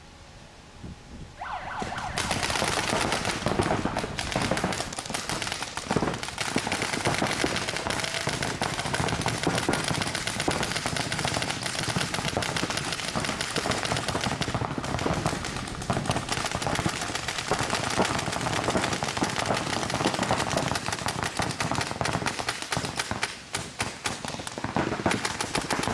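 Paintball markers firing in dense, rapid volleys from several players at once, starting about two seconds in and keeping up with only a brief lull near the end.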